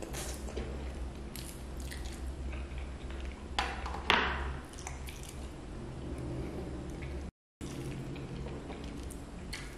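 Close-up wet eating sounds of a person chewing roast chicken with their fingers: smacking lips and sucking on the fingers, with a louder smack about four seconds in. The sound cuts out for a moment near the seventh second.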